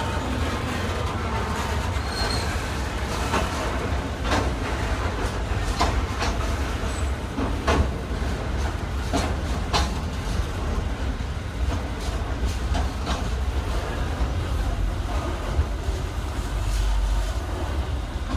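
Long freight train of container wagons rolling past close by: a steady low rumble with irregular sharp clicks and knocks from the wheels on the track.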